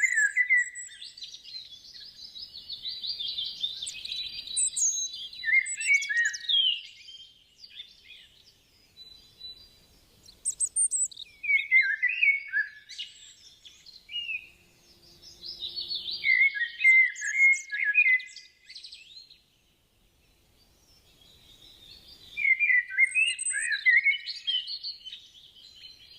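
Songbirds singing and chirping in repeated bursts of quick, high, pitch-bending notes, with quiet gaps in between.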